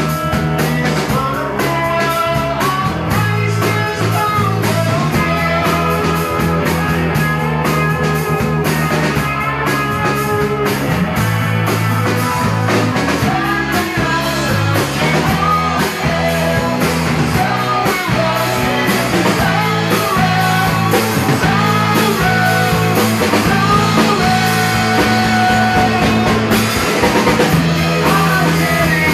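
Live rock band playing: electric guitars, bass and drum kit, with a male singer's vocals over the top.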